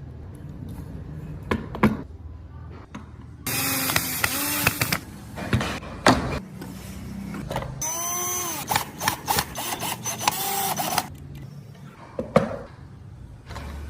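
Handheld power tool cutting into wood in two bursts, its whine dipping in pitch and recovering as it bites, with sharp knocks and clicks from handling the work between the bursts.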